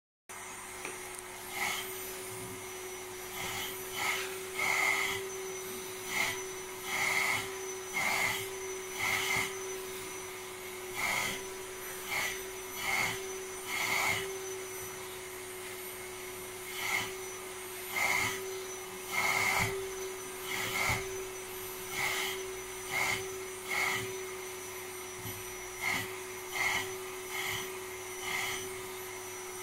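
Vacuum cleaner running with a steady hum while its hose nozzle is stroked through a dog's coat to suck out loose hair; each stroke brings a short surge of rushing suction noise, about one every second or so.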